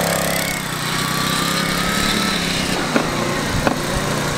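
Small gas engine of a motorized ride-on cooler running steadily as it drives along, with two short clicks about three seconds in.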